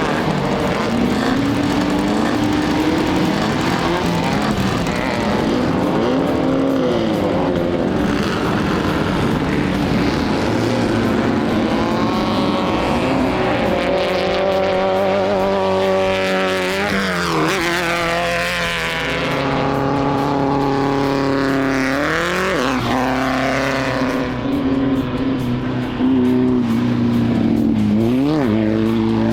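Engines of Volkswagen Beetle-based off-road race cars (bugs) revving hard. Several cars pass close by, their pitch swooping down as each goes past, about three times in the second half.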